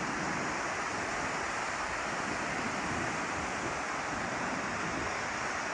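Steady rushing of river water, an even hiss-like roar with no change in level.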